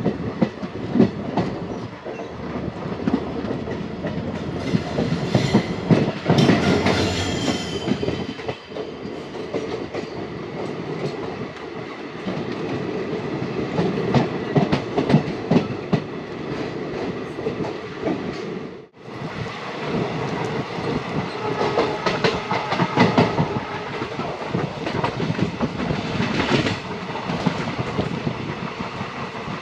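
Train running along the track, its wheels clattering steadily over the rails, with a brief high whine about seven seconds in. The sound drops out for an instant about two-thirds of the way through.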